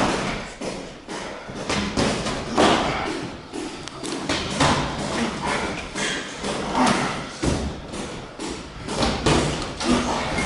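Muay Thai sparring: irregular dull thuds of boxing gloves and shin-guarded kicks landing on the opponent's guard, several a second at times.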